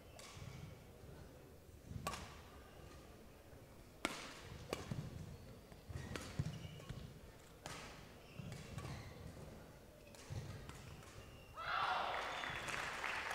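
Badminton rally: rackets striking the shuttlecock with sharp cracks every second or two, with footfalls on the court. About twelve seconds in the rally ends and the crowd breaks into applause and cheering.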